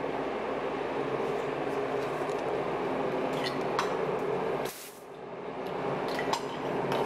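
A steady hum and hiss with a few light clicks as a handheld bidet sprayer is handled. The hum drops out suddenly about two-thirds of the way through, then swells back.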